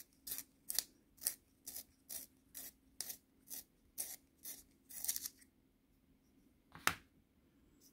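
A cedar pencil turned by hand in a small handheld Apsara long-point sharpener, the blade shaving the wood in short strokes about twice a second. The strokes stop about five seconds in, and a single sharp click follows near the end.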